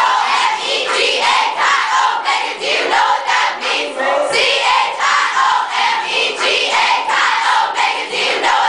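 A group of women chanting and singing together, loud and rhythmic, the voices shouted more than sung.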